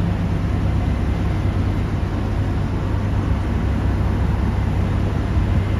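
Steady low drone of heavy diesel mining machinery: a Cat 6020 hydraulic mining excavator running under load as it swings a bucket of coal, alongside a haul truck.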